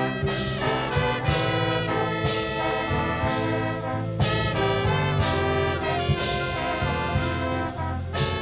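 Marching band playing, brass section sustaining chords over drums, with sharp full-band hits about four seconds in and again near the end.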